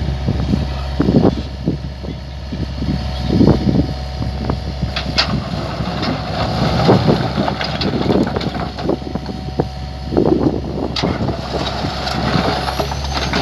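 Mini excavator's diesel engine running steadily, with irregular knocks and clatter throughout from the machine at work.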